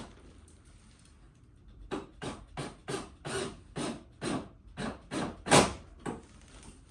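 A run of about a dozen sharp knocks, roughly three a second, starting about two seconds in, with the loudest one near the end.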